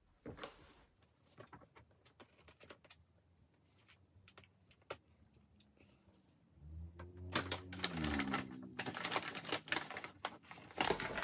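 Sparse light taps and clicks as cork bark pieces are handled, then from about six seconds in a dense crinkling and clicking as a plastic bag of cork bark is rummaged through. Under the crinkling, a low hum bends down and then up in pitch.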